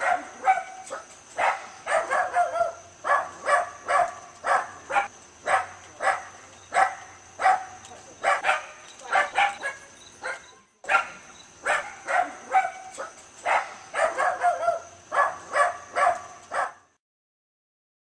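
Dachshund barking over and over in short, sharp barks, about two a second, in two runs with a brief break about eleven seconds in; the barking stops shortly before the end.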